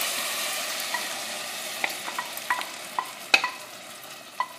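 Hot oil sizzling as crushed tomato is poured onto sautéed onion and green pepper in a stainless steel pot, the sizzle fading as the tomato covers the pan. A wooden spoon scrapes the tomato out of the dish, with several light knocks, the loudest about three seconds in.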